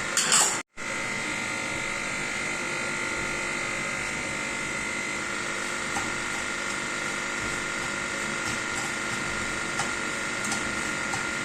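A short burst of noise, then after a brief cut a steady electric motor hum with a thin high whine, like a small fan running, with a few faint light clicks.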